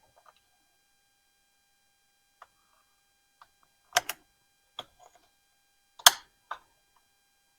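Sharp plastic clicks and knocks as the clips on a Ford F-250 Super Duty's air filter housing are fastened: a pair of clicks about four seconds in, and the loudest single snap about six seconds in.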